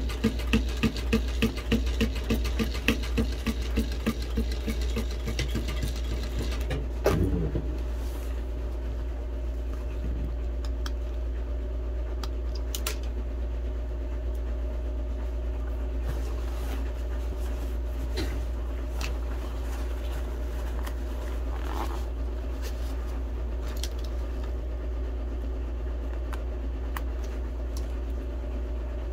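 Sewing machine running in a quick, even rhythm while stitching a patch, stopping about seven seconds in. A steady hum and a few light clicks follow.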